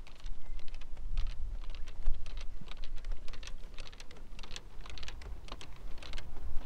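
Golf clubs clattering against each other in a carried golf bag with each step, an irregular run of quick clicks and rattles, over a steady low rumble.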